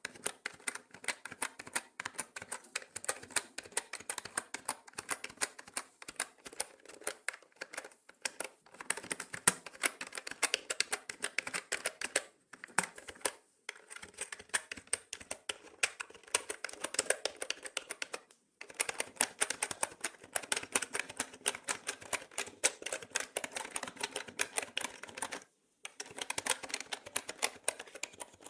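Mechanical keyboard being typed on in fast, continuous runs of key clicks, broken by a few short pauses of under a second.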